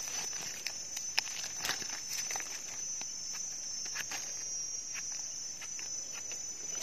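A steady high-pitched insect drone, with scattered small clicks and scrapes from a knife trimming soil off the base of a freshly picked Amanita mushroom.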